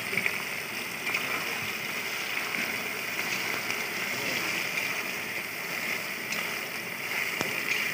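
Hot oil sizzling steadily in a large aluminium kadai as chopped onions fry, stirred with a metal ladle that scrapes the pan now and then.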